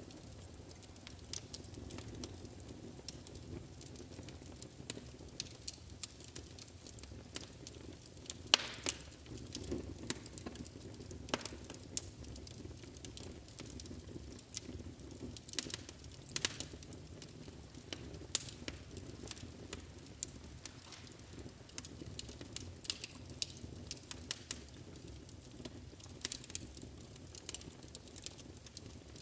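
Wood fire burning in a fireplace: a steady low rumble of flames under irregular sharp crackles and pops, a few louder snaps standing out.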